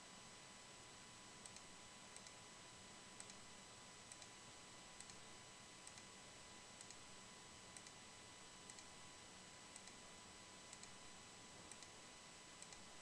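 Faint computer mouse clicks, mostly in pairs about once a second, over a low steady hiss.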